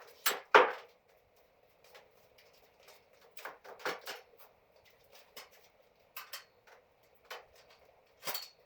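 Irregular metallic clanks, clicks and knocks from hands-on work with hard objects: two loud knocks in the first second, then scattered lighter clicks.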